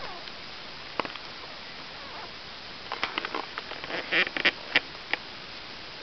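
Newborn Irish Setter puppies squeaking: one short squeak about a second in, then a busier run of brief high squeaks and snuffles between about three and five seconds.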